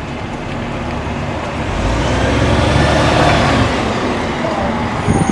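Diesel engine of a double-decker bus pulling away and passing close by, growing louder as it approaches and easing off slightly as it goes past.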